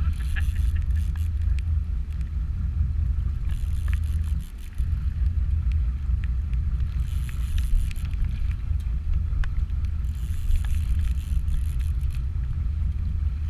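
Steady low rumble aboard a charter fishing boat at sea. It dips briefly about four and a half seconds in, with short bursts of hiss now and then.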